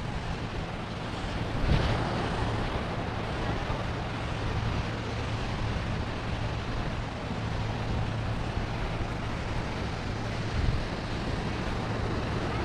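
Wind buffeting the microphone over the steady wash of small surf breaking on the beach, briefly louder about two seconds in.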